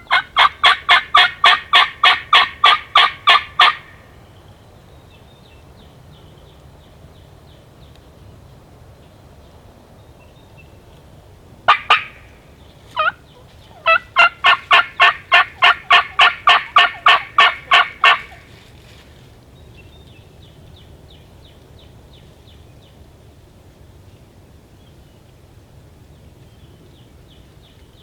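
Two loud runs of rapid turkey calling, about four notes a second, each lasting about four seconds, with two single notes between them.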